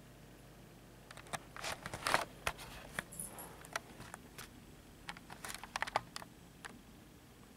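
A kitten shifting and rolling over on a coarse felt surface: light scratching, rustling and sharp clicks in two bursts, about a second in and again about five seconds in.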